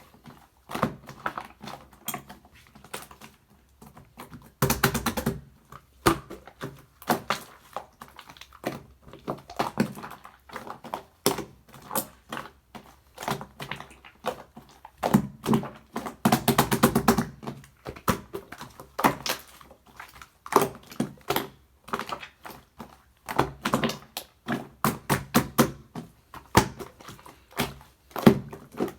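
Clear slime being squeezed and pressed by hand, giving irregular sticky pops and clicks, in denser runs of popping about five seconds in, around sixteen seconds and again near the end.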